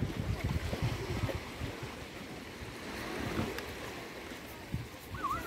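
Small sea waves washing against a pebble shore, with wind buffeting the microphone in gusts. A short high chirp sounds near the end.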